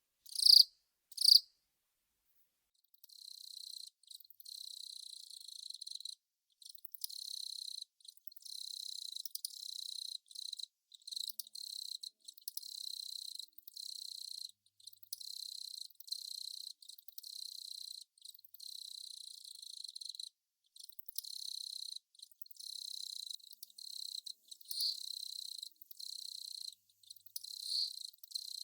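Velarifictous aspersus (long-snouted cricket) singing. Two short, loud chirps come about a second apart at the start. After a short pause comes a high, steady trill in long phrases of one to two seconds, broken by brief gaps.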